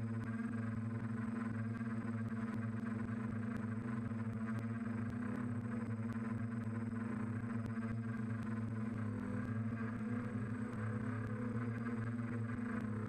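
DJI F550 hexacopter's six electric motors and propellers humming steadily in flight, picked up by the camera on its own frame: a constant low drone with a faint high whine above it.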